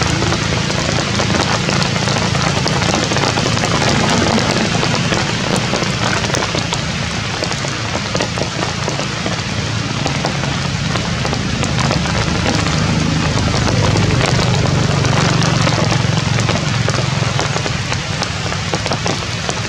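Steady rain falling, a continuous hiss with the patter of drops, over a low, even rumble.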